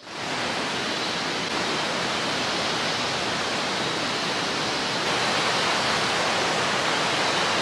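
Rushing water of a rocky rainforest stream, a steady even rush that fades in at the start and grows a little louder about five seconds in. A faint steady high tone sits above it.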